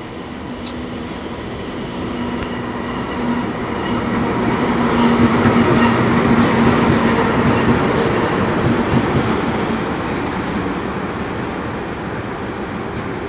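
Two GE CC206 diesel-electric locomotives running light in tandem pass close by. Their engine drone and wheel noise build up, peak about halfway through as they go past, then fade as they move away.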